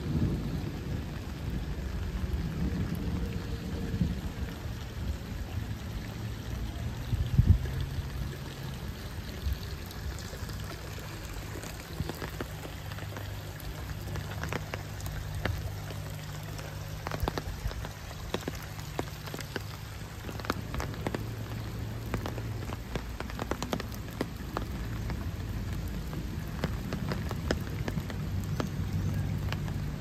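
Steady rain falling on water and wet ground, with a low rumble underneath. From about ten seconds in, sharp, irregular ticks of drops land close by.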